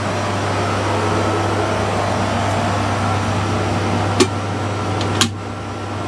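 Steady hum of running refrigeration equipment in a condensing unit area, with two sharp metallic clicks near the end as a sheet-metal electrical disconnect box cover is pulled off.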